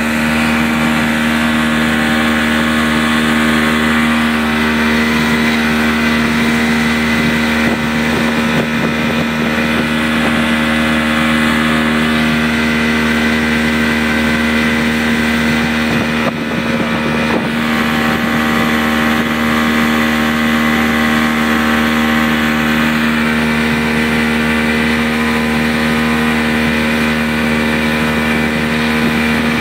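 Motorboat engine towing a banana boat, running loud and steady at an even pitch, with wind buffeting the microphone.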